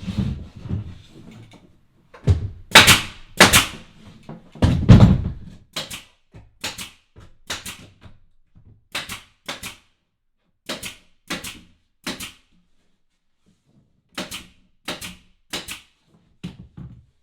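A series of sharp knocks and thuds: several heavy ones in the first five seconds, then lighter knocks, often in pairs, about one a second, pausing briefly before a last few near the end.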